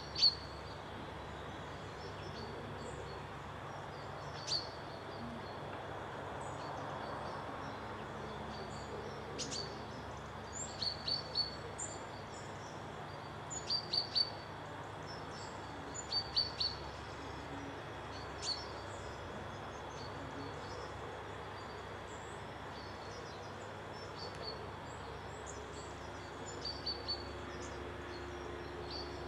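Small birds chirping: short, sharp high chirps, often in quick runs of two to four, over a steady background hiss.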